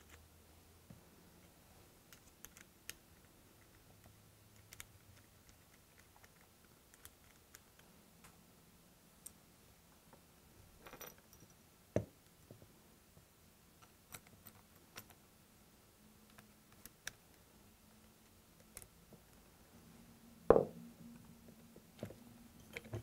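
Faint clicks and light metal taps of scope rings, ring screws and a small screwdriver being handled as the screws are started on the scope tube. A sharper knock comes about halfway through, and the loudest knock comes a couple of seconds before the end.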